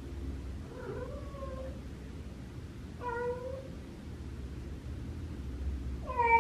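Female cat in heat calling three times with drawn-out meows that slide in pitch, the last one near the end the loudest: the mating call of a queen in oestrus.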